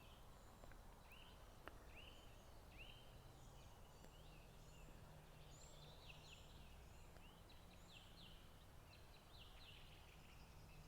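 Faint birdsong: many short chirps and quick sweeping notes, repeated throughout, over a faint steady low hum.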